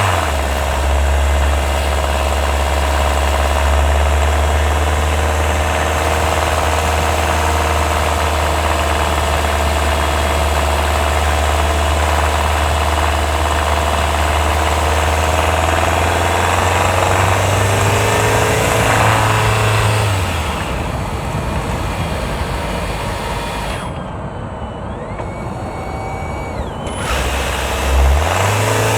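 The 1.6-litre turbo four-cylinder petrol engine of a Hyundai Tucson NX4 Hybrid, heard close up from a microphone on top of the engine. It runs steadily, stops about two-thirds of the way through, and starts up again near the end. The owner is recording a rattle from this engine that he hears only when it runs under load uphill.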